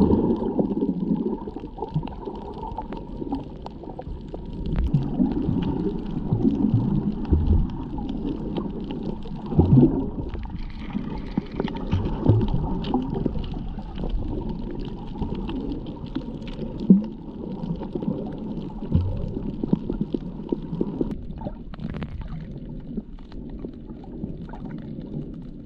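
Muffled underwater sound picked up by a submerged GoPro Hero 7: a low, uneven rumbling and gurgling of water moving around the camera that swells and fades, with a few sharp knocks.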